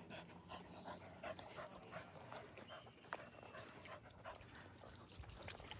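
Faint sounds of dogs moving about close by, with light panting and scattered soft clicks and rustles.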